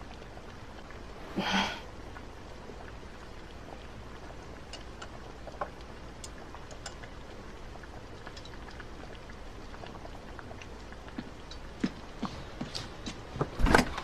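Quiet room tone with a faint steady hiss, broken by one brief soft burst about a second and a half in. Light clicks and clinks of chopsticks and dishes grow more frequent near the end as noodles are served from a pot into a bowl.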